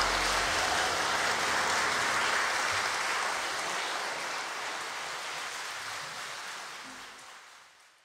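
Audience applauding at the end of a live jazz song, with the band's last low held note dying away about half a second in. The applause fades out toward the end.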